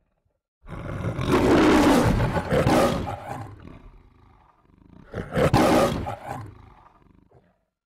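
The MGM logo's lion roar: two roars, a long one starting about half a second in that trails off into lower growls, then a second, shorter roar about five seconds in.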